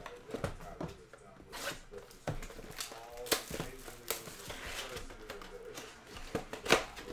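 Clear plastic shrink wrap being torn off a trading-card box and crinkled, with foil pack wrappers handled: a run of sharp crackles and rips, the loudest near the end.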